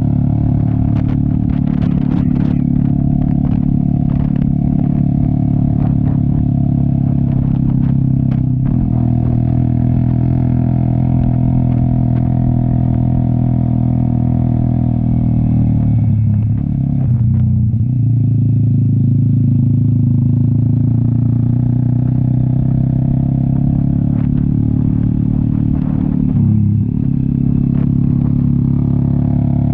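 Cafe 400 motorcycle with an SC Project aftermarket exhaust, running under load on a steep uphill climb. The engine note holds steady, then dips and comes back twice, about halfway through and near the end. A few sharp clicks sound in the first several seconds.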